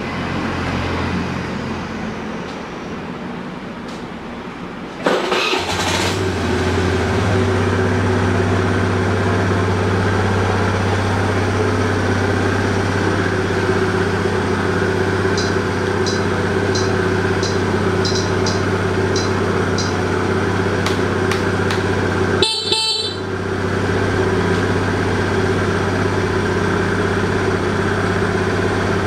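Suzuki Address V50 scooter's 49cc fuel-injected engine running steadily. It gets louder after a sudden knock about five seconds in. A short run of light ticks comes midway, and the sound breaks off for a moment near the end.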